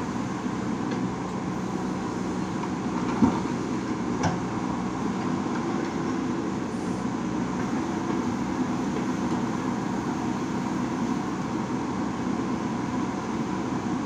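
JCB backhoe loader's diesel engine running steadily under load while the backhoe arm works, with two sharp knocks a little over three and four seconds in.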